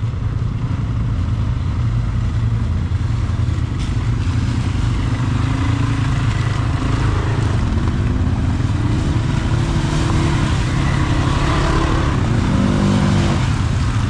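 Polaris Scrambler XP 1000 S ATV engine running steadily while riding off-road.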